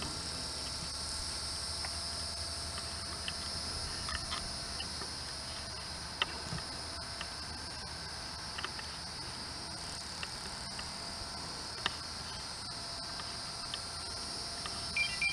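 Steady, high-pitched insect chorus, with a few faint short ticks now and then.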